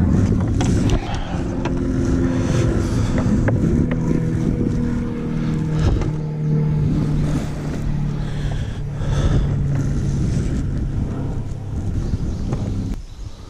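A steady engine drone, low and humming, that shifts pitch a little now and then, with light handling clicks over it. It cuts off suddenly near the end.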